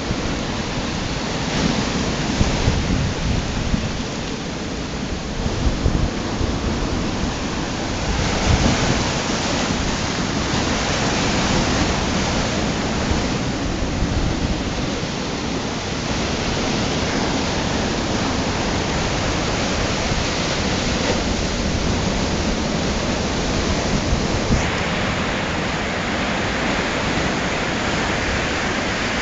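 Rough storm surf breaking and washing up a beach, a steady rush of water noise, with wind rumbling on the microphone underneath.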